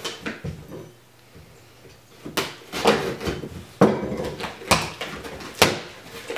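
A shipping package being opened and handled by hand: after a short quiet stretch, a string of knocks, scrapes and rustles from the box and its packing.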